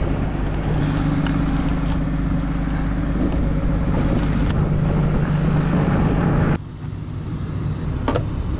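A truck's engine running steadily with a low hum. About two-thirds of the way in the sound drops off suddenly to a quieter running sound, with a single click near the end.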